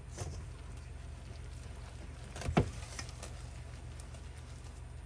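Knocks of a utensil and mixing bowl as bread dough is stirred: a light knock near the start, one loud thump about two and a half seconds in, and a few lighter clicks after it, over a steady low hum.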